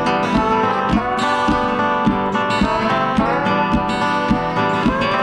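Music with plucked and strummed guitar over a steady beat.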